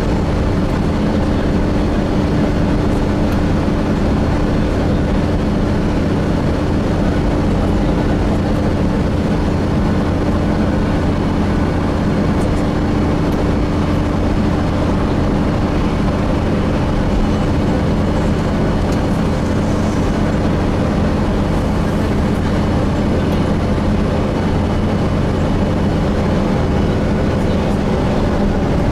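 Gillig Phantom diesel transit bus with a Voith transmission, heard from inside while moving: a steady engine drone and road rumble. A steady hum within it fades out a little past halfway.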